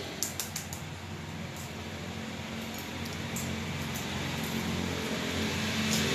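A steady low hum with a light hiss, and over it a few sharp little clicks and cracks of hard-boiled eggshell being broken and picked off by hand, several close together in the first second and single ones later.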